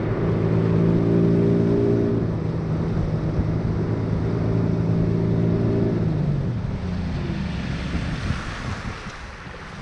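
Yamaha outboard motor running steadily on a boat. Its engine note drops away about six seconds in, leaving the rush of water and wind noise.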